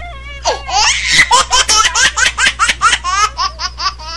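A woman laughing hard: a long, loud run of quick, high-pitched ha-ha bursts, about four a second, fading a little near the end.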